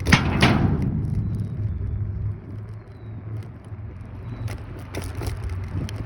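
Ride noise on a Kaabo Wolf Warrior 11 Pro electric scooter: a steady low rumble of road and wind. There is a sharp knock right at the start and another about half a second later, like jolts over bumps, and a few short clicks and rattles near the end.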